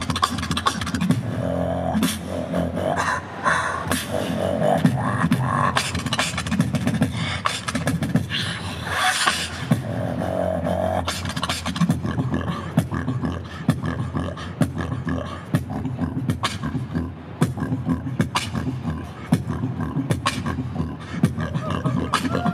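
Beatboxing through a microphone and PA speakers: a fast run of vocal kick, snare and hi-hat hits over a low bass line, with some hummed pitched notes in the first half.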